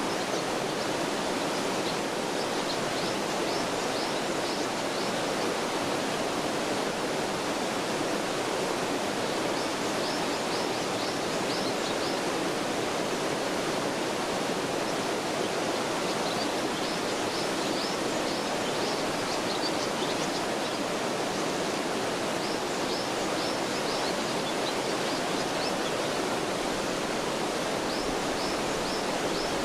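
Mountain stream rushing steadily over rocks, with a small bird singing short phrases of rapid high notes several times over the water.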